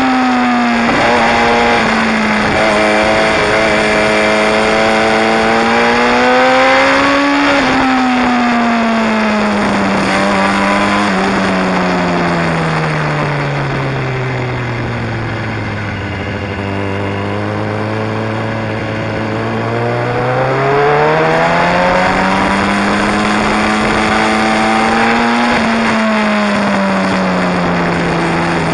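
Sport motorcycle engine and exhaust, heard from a camera mounted on the bike, its pitch rising and falling with the throttle through a series of bends. About halfway through the engine winds down to a low, steady pitch for several seconds, then climbs again.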